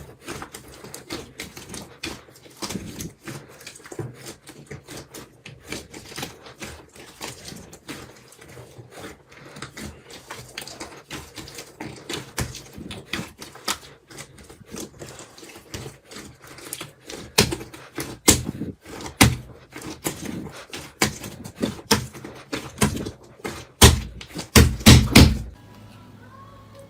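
Slime being pressed and poked by hand, giving dense crackling clicks and pops that grow louder and more separate in the second half, then stop suddenly near the end.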